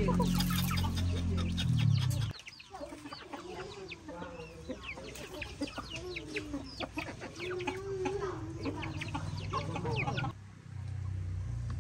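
Chickens clucking: a run of short, clicky clucks and low wavering calls. A low steady hum covers the first two seconds and comes back near the end.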